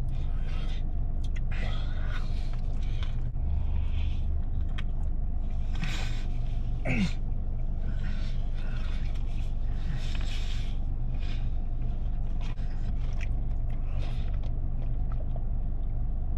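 Chewing a fried chicken sandwich with pickles: scattered crunches and mouth noises over a steady low rumble, with a short falling vocal sound about seven seconds in.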